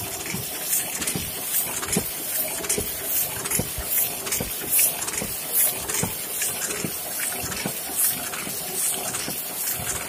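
Heidelberg GTO 52 offset printing press running steadily, with a constant mechanical hum and a regular hissing clack a little more than once a second as sheets cycle through it.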